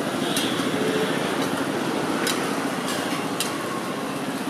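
Steady street traffic noise, with about five sharp metal clinks spread through it.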